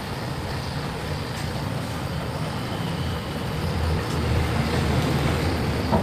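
Hose-fed gas torch burning with a steady rushing rumble as it heats thick body filler and paint on a motorcycle fuel tank to soften it for scraping; it grows a little louder about four seconds in.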